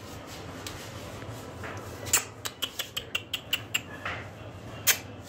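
Quick run of sharp tongue clicks and kissing squeaks, three or four a second, starting about two seconds in: a person calling a puppy to come.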